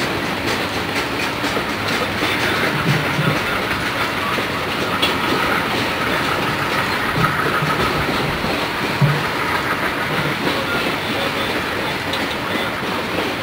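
Coal train's open-top hopper cars rolling past, their steel wheels clicking and rumbling steadily over the rail joints.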